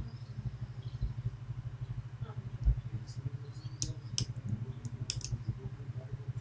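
Lock picking on a Medeco Biaxial lock: a few small, sharp metallic clicks as the pick works the pins, a little past the middle, with a couple of soft low knocks earlier. Under it runs a steady low hum with a fast even pulse.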